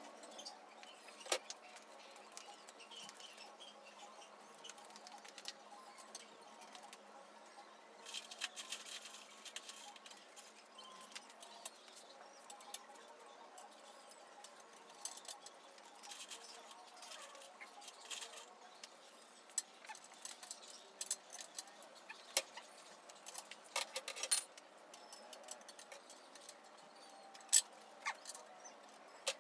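Scattered light metallic clicks and clinks as bolts and fittings are handled and tightened by hand on the steel frame of a homemade hydraulic press. There is a cluster of clinks about eight seconds in and a few sharper clicks near the end.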